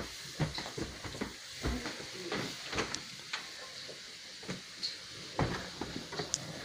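A small child's footsteps on a wooden floor and the rustle of his jacket, with scattered irregular knocks and one heavier thump about five and a half seconds in.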